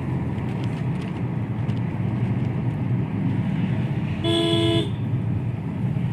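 Steady road and engine noise inside the cabin of a Mahindra XUV300 on the move. A vehicle horn beeps once, for about half a second, a little after four seconds in.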